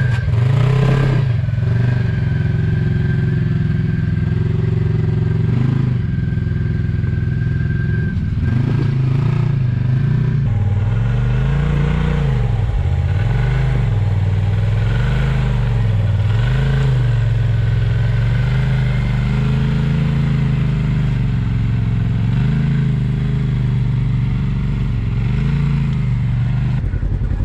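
Polaris RZR side-by-side engines running under load as the UTVs crawl over rock ledges, revving up and down repeatedly in swells of a second or two.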